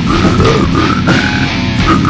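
Lo-fi experimental brutal death metal: loud, dense distorted electric guitar with rapid drumming, played without a break.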